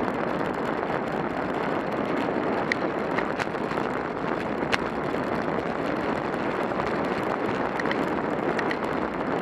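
Steady rush of wind over the microphone and road noise from a bicycle riding downhill on asphalt at about 16 to 24 mph, with a few faint clicks.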